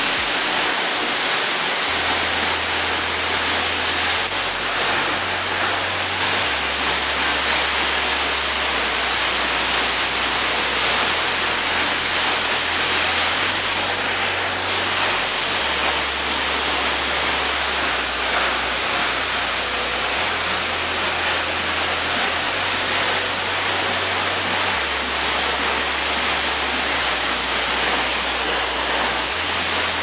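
Waterfall: a steady, even rush of falling water crashing down, with no pauses.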